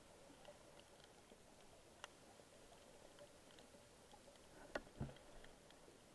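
Near silence: faint underwater ambience with scattered faint ticks. There is a sharp click about two seconds in, and near the end a louder click followed by a low thump.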